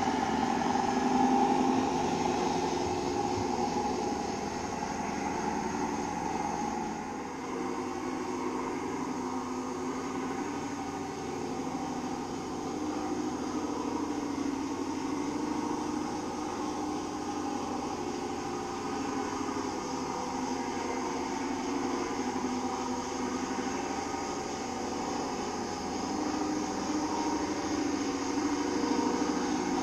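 Radio-controlled model trucks running, with a steady diesel-truck engine note from their sound modules. The engine note changes about seven seconds in.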